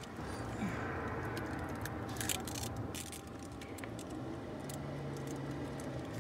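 Eating sounds from fried chicken sandwiches: chewing and mouth noises with scattered small clicks, and a crackle of paper wrappers about two seconds in. A low steady hum from the car runs underneath.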